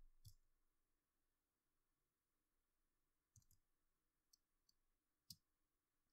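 Near silence with a handful of faint, short clicks of computer controls, the loudest a little after five seconds in.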